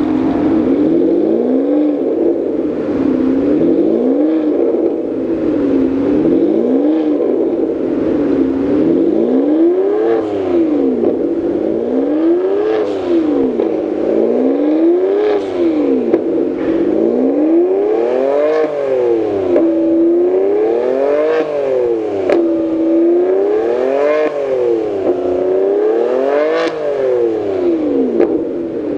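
Ferrari 612 Scaglietti's V12 running through a Kreissieg Valvetronic cat-back exhaust, blipped about ten times: each blip a quick rise in revs that falls back to idle, one every two to three seconds.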